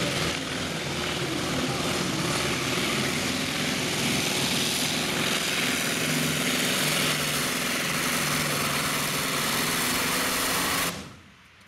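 Modified pulling tractor's engine running hard under load as it drags the weight sled, a loud steady din; the sound cuts off suddenly near the end.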